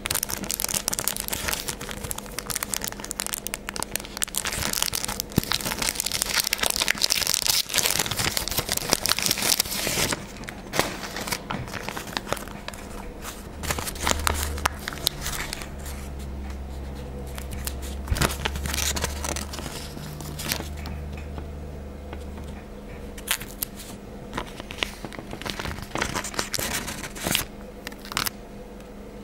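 Glossy sticker sheet crinkling and rustling as it is handled and stickers are peeled off it. The crinkling is dense for about the first ten seconds, then thins to scattered crackles and ticks, with a low hum in the middle.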